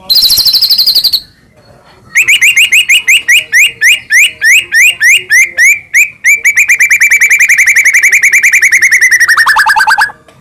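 White-rumped shama (murai batu) song. A short, fast, high trill, then after a pause a long run of rapid rising notes that speed up into a continuous rattle, the 'kretek' call, dropping in pitch near the end.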